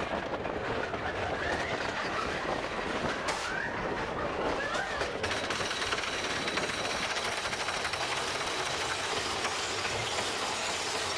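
Big Thunder Mountain Railroad mine-train roller coaster rolling and rattling along its track. About five seconds in, a steady high whine and fast ticking join in as the train nears its lift hill.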